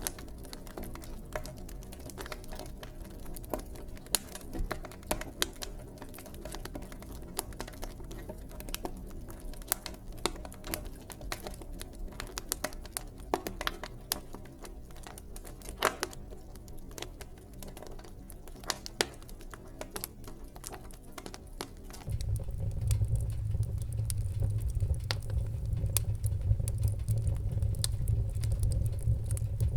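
Fireplace wood fire crackling, with irregular sharp pops and snaps over a soft steady bed. About 22 seconds in, a loud low rumble comes in and stays on under the crackling.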